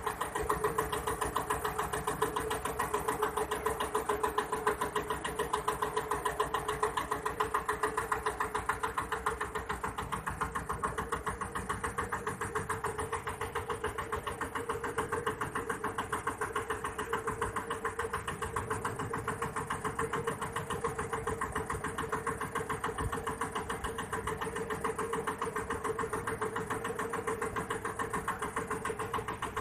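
Small boat's engine running steadily under way, a fast, even putter that holds the same pitch throughout.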